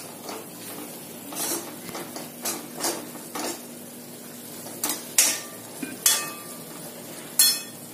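Steel spoon stirring and scraping a thick onion-and-coconut masala in a metal kadhai, with short sharp clinks of the spoon against the pan, a few of them louder in the second half.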